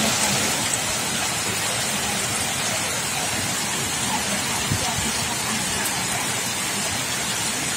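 Torrential rain falling steadily, a dense even hiss, with water running across a flooded paved courtyard.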